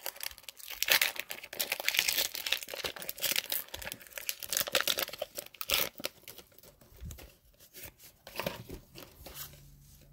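Foil wrapper of a Pokémon trading card booster pack crinkling and tearing as it is ripped open, a dense crackle that thins out after about six seconds.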